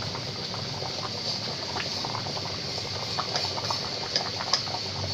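Goat meat korma gravy boiling hard in a cooking pot over high heat: steady bubbling with scattered small pops.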